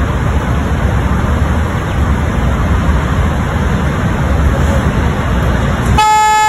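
Steady road-traffic rumble of idling and passing vehicles, then a vehicle horn sounding once, loud and steady, for under a second near the end.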